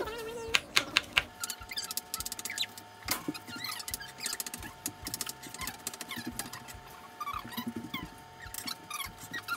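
Kitchen knife chopping garlic on a cutting board by hand: quick, light, irregular clicks as the blade strikes the board.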